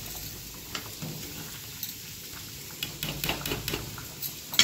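A metal pot of rice at a rolling boil on a gas stove, its starchy froth bubbling and crackling at the rim. There is a steady hiss under it, and the crackling pops come thicker from about three seconds in.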